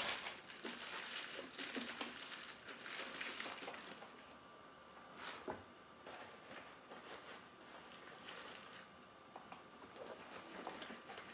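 Soft crinkling and rustling of an artificial fabric flower and plastic bits being handled and pushed into a stretched balloon on a Stuff-a-Loons stuffing machine. The handling noise is busiest in the first few seconds and sparser after.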